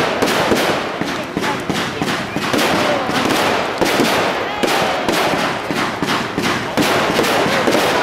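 Fireworks display: a rapid, continuous barrage of bangs and crackling from aerial shells bursting into crackling stars.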